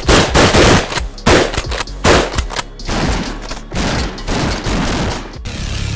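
A rapid edited run of loud shotgun blasts, several close together in the first three seconds, followed by a string of abruptly cut noisy bursts and a low rumble near the end.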